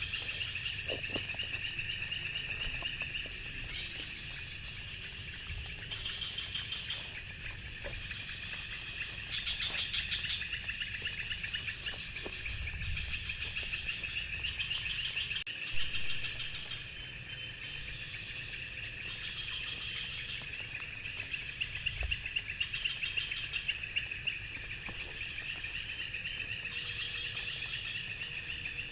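Chorus of insects chirring in the forest: pulsed trills that rise and fall in repeated phrases over a steady high-pitched buzz. A single brief knock comes a little past halfway.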